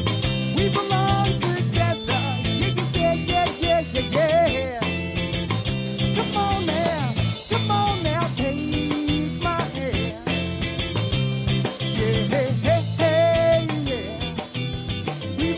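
Live rock band playing: electric guitar, bass guitar and drum kit, with a man singing the lead vocal.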